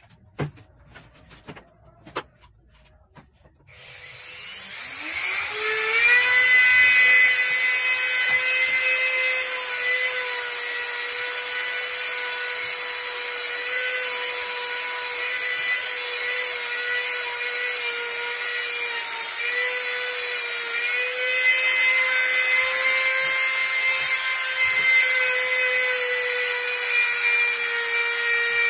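A few knocks, then about four seconds in a handheld electric rotary tool starts up, its whine rising quickly to a steady high pitch. It keeps running while held against the commutator of a circular saw's armature to clean it.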